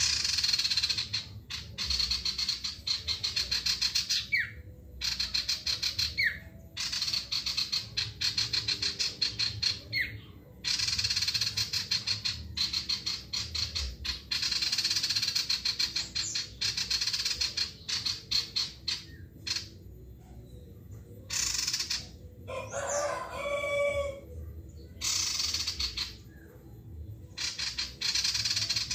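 Male sirtu (common iora) singing hard, in long bursts of rapid, high chattering trills several seconds long, separated by short pauses and broken by a few quick rising whistles. A rooster crows once in the background, about three-quarters of the way through.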